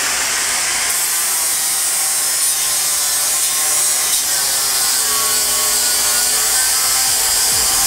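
Electric angle grinder running with a flap disc pressed against steel, a steady loud grinding hiss of abrasive on metal over the motor's whine.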